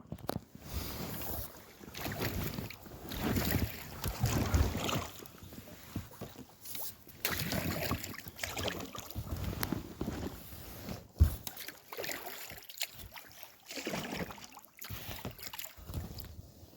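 Paddle strokes splashing and sloshing in water from a small inflatable packraft, coming in uneven swells, with one sharp knock about eleven seconds in.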